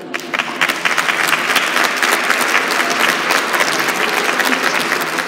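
An audience in a hall applauding, dense steady clapping that starts as the poem ends.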